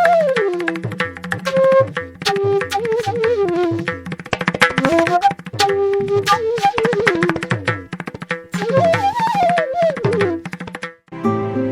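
Indian classical-style background music: a flute melody with sliding ornaments over tabla strokes and a steady drone. About eleven seconds in it cuts to a different piece with plucked strings.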